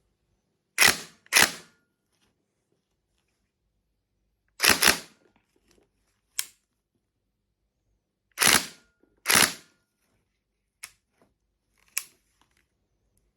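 Tokyo Marui EVOLT airsoft electric gun firing single shots, each a sharp crack with a short decay. About seven loud shots come singly or in pairs half a second to a second apart, with two faint clicks near the end.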